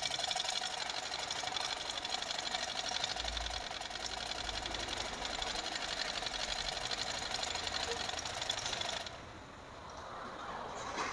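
Butterfly domestic sewing machine stitching steadily at speed through a strip of fabric, then stopping about nine seconds in. It is a test run after a repair for skipped stitches and thread breaking.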